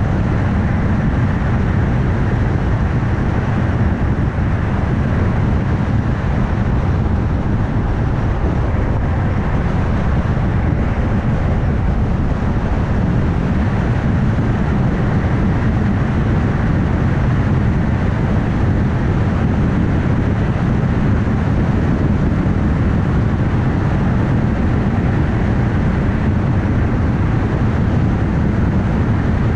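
Car driving at steady speed: an even rumble of tyre and road noise with engine hum, unchanging throughout.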